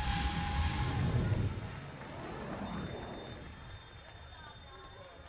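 Wind-chime shimmer: many high bell-like tones come in one after another and ring on, slowly fading. A low rumble under them dies away in the first couple of seconds.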